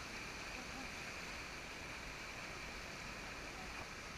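Steady rush of river water around a whitewater raft, an even hiss with no distinct events.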